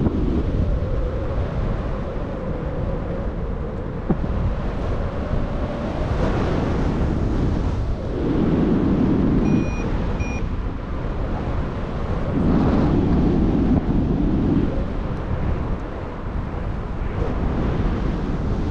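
Air rushing over the microphone of a paraglider in flight: a steady wind noise that swells twice in louder gusts through the middle. Two brief high beeps come close together near the middle.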